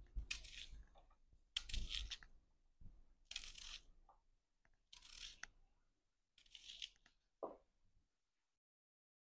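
Red onion sliced with a kitchen knife in the hand, without a board: the crisp crunch of the blade through the onion five times, about every second and a half.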